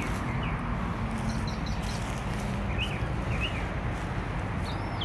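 Steady rumbling background noise, with short high bird chirps a few times.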